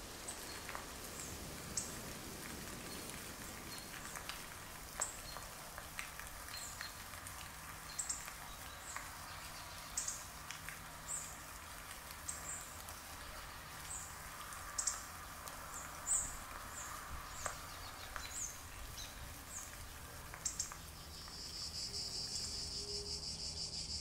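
Faint outdoor ambience: a low hiss with scattered short, high chirps. Near the end, crickets start a steady, pulsing chirping.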